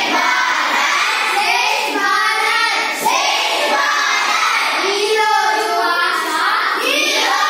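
A group of children singing together in chorus, their voices running on without a break.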